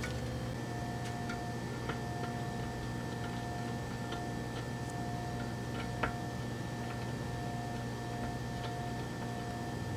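Small metal hardware and a nut driver clicking lightly against a tube socket's mounting nuts and the aluminium chassis, about a dozen irregular ticks, over a steady low hum.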